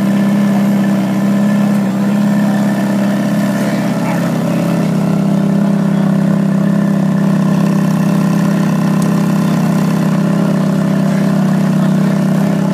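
2006 Ferrari F430's 4.3-litre V8, its exhaust fitted with sleeves, idling steadily while it warms up after a cold start.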